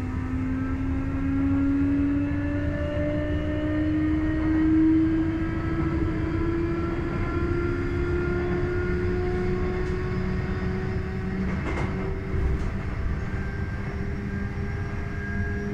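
Sotetsu 8000-series train with a Hitachi IGBT-VVVF inverter, heard from inside the passenger car as the train accelerates: the inverter and traction motors give several tones that rise slowly in pitch. Under them is a low rumble of wheels on track, and a couple of sharp clicks come about twelve seconds in.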